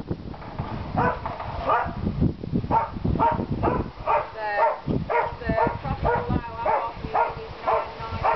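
A dog barking in a quick run of short, high yaps, about three a second, starting about a second in, over a low rumble of wind or handling noise.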